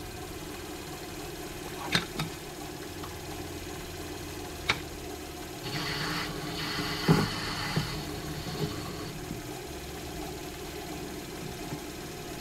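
Small cue-repair lathe running with a steady motor hum while its cutting tool trims a newly glued break tip down toward the ferrule: two scraping passes of a few seconds each in the middle, with a few sharp clicks.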